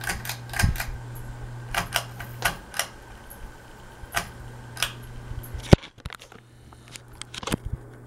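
Tatung Hugger ceiling fan's motor giving a steady low buzz, with a dozen or so irregular sharp clicks and taps over it. The loudest click comes near the six-second mark, and the hum drops away for a couple of seconds after it.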